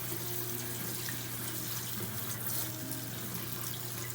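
Kitchen tap running cold water over canned black beans as they are rinsed, a steady rushing stream. A steady low hum, from the running microwave oven, sits underneath.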